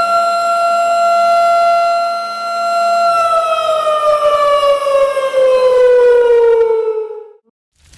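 Siren holding one steady wailing tone, then winding down in pitch from about three seconds in and cutting off shortly before the end.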